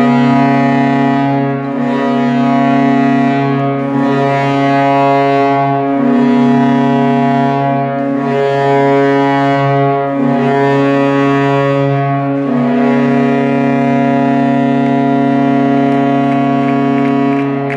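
Hockey arena goal horn blowing a long, loud, steady low chord, wavering slightly about every two seconds and dying away near the end. It is the post-game horn.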